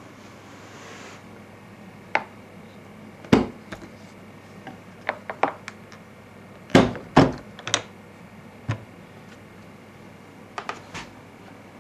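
Irregular sharp clicks and knocks, about a dozen, from the noise logger's case being handled and opened.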